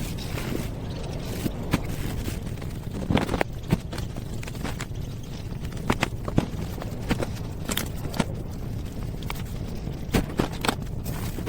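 Irregular clicks, knocks and scrapes from handling and cleaning the parts of an old Commodore PC-10 desktop computer, over a steady low rumble.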